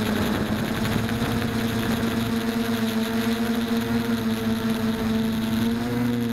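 A mini foam tricopter's electric motors and propellers buzz steadily in flight, picked up by the camera on the craft. The pitch rises slightly about six seconds in.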